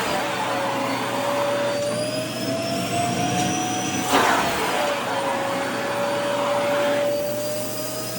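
Vacuum cleaner running, its motor whine dropping in pitch and slowly climbing again, with a short loud rush of air about four seconds in.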